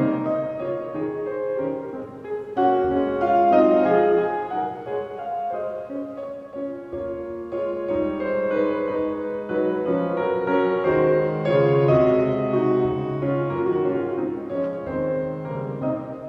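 Solo piano playing classical music.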